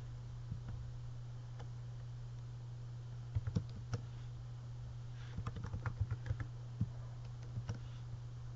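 Keystrokes on a computer keyboard, typed in short irregular bursts with a quick run of keys in the middle, over a steady low hum.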